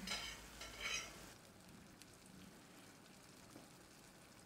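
Omelette frying in a non-stick pan: a few sharp sizzling crackles in the first second, then a faint steady sizzle.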